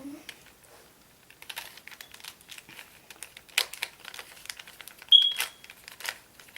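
Rubik's cube being turned by hand: its plastic layers click and clack in quick, irregular runs. A short high beep sounds about five seconds in and is the loudest thing.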